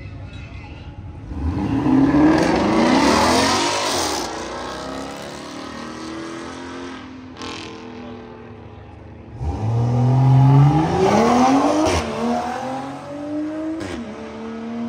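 Two car engines revving hard one after the other as the cars accelerate away. Each engine note climbs steeply in pitch, and the second, starting about nine seconds in, dips in pitch at gear changes near the end.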